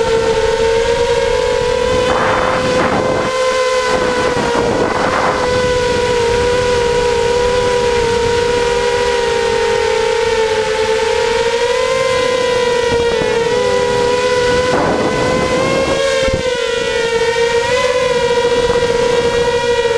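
The 2300 kV brushless motors and propellers of a 250-size FPV racing quadcopter whine steadily, picked up by its onboard camera. The pitch wavers slightly as the throttle changes. There are three brief rushes of noise, about two, five and fifteen seconds in.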